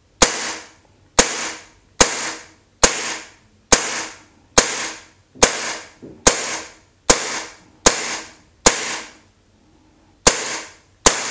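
Umarex Beretta M9A1 CO2 blowback BB pistol fired semi-automatically, about thirteen sharp shots a little under a second apart, each followed by a short echo. There is one longer pause shortly before the end.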